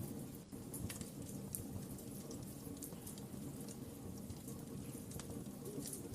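Wood fire crackling in a fireplace: irregular sharp pops and snaps over a steady low rumble of the burning logs.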